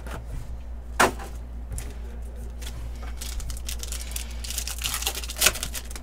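Foil wrappers of football trading card packs being torn open and crinkled by hand, with irregular rustling. Two sharp snaps stand out, about a second in and near the end.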